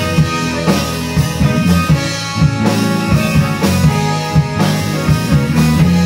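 Live band playing a rock instrumental: drum kit keeping a steady beat under a prominent electric bass line, with electric guitar and keyboard.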